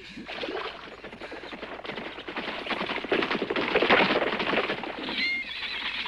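Horses' hooves clattering in a fast, dense run of strokes as riders arrive, loudest about three to four seconds in. A short high wavering call sounds just past five seconds.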